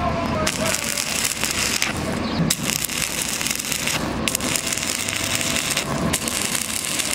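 Electric welding arc crackling and sizzling on 1 mm thin sheet metal, cut off briefly three times, about every two seconds.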